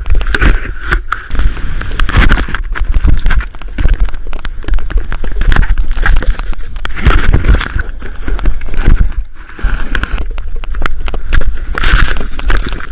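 Snowboard riding and tumbling through deep powder: wind rushing over an action camera's microphone, snow hissing and scraping under the board, and many sharp knocks and thumps as the camera is jostled.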